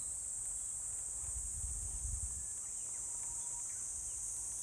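A steady, high-pitched insect chorus from summer woodland, unbroken throughout, over a low rumble.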